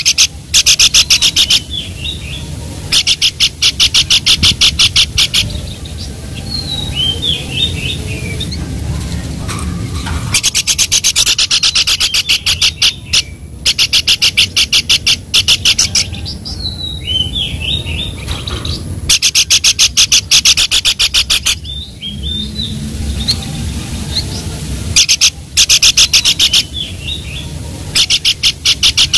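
Babbler (pelanduk) calling: bursts of rapid, sharp repeated notes, about eight a second and lasting one to two seconds each, alternating with short whistled phrases. A steady low rumble runs underneath.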